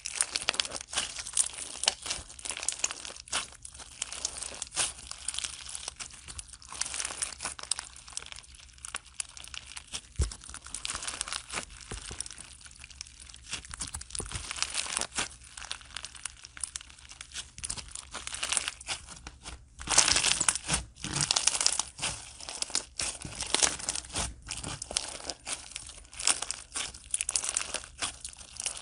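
Blue crunchy slime filled with clear beads squeezed and kneaded by hand, giving a dense, continuous crackling and popping that gets louder about two-thirds of the way through.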